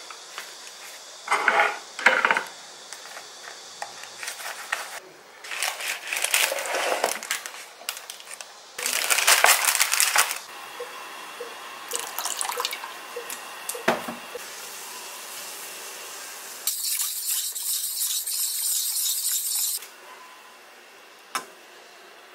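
Kitchen work at a sink: water running from a tap in several short bursts, one lasting about three seconds near the end, with dishes and utensils knocking and clinking in between.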